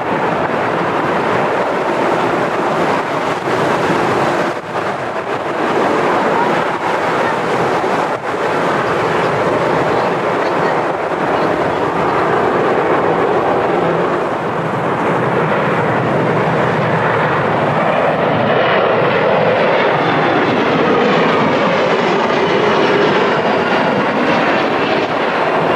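Jet airliner engines at close range, a loud steady rush of engine noise. In the last third a whine glides in pitch as a landing jet passes.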